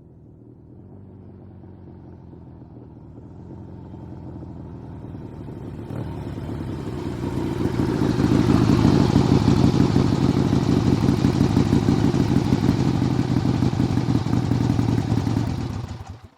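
Harley-Davidson V-twin motorcycle engine drawing closer and growing louder over about eight seconds, then running steadily close by at idle. The engine is switched off near the end and dies away quickly.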